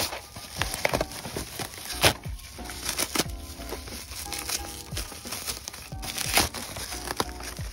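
Bubble wrap and plastic packaging crinkling and rustling in the hands as a boxed model wagon is unwrapped, in quick irregular crackles, over background music.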